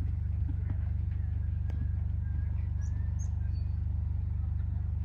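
A steady low mechanical drone with a fast, even pulse, like a nearby idling engine, with a few faint bird chirps over it.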